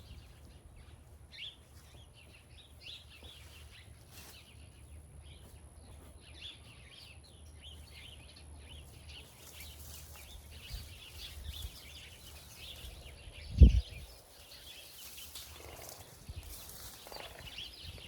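Birds chirping outdoors, over a faint low rumble, with one short, loud thump a little over two-thirds of the way through.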